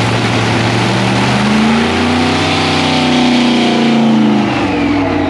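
Drag-racing funny car engine running in the pit warm-up, at idle at first, then revved up about a second and a half in. The revs are held high for about three seconds, then it drops back toward idle near the end.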